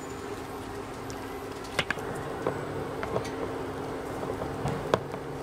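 Steady buzzing hum of an induction cooktop running under a stainless steel pot, with a few sharp clicks as the bowl and chopsticks knock against the pot, the loudest about two seconds in.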